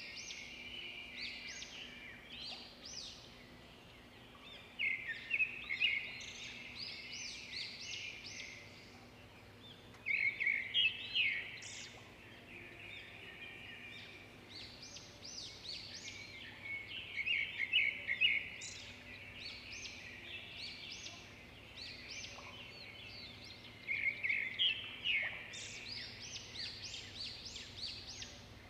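Birds chirping and twittering in rapid high trills that swell about every five to seven seconds, over a faint steady hum.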